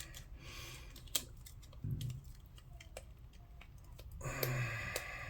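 Plastic blister packaging of a memory card being cut and pried open: scattered sharp clicks and snips of stiff plastic. A man gives a short low hum twice, about two seconds in and near the end.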